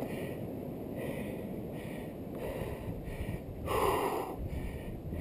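Steady wind rush and road noise picked up while riding a bicycle, with a brief louder rush about four seconds in.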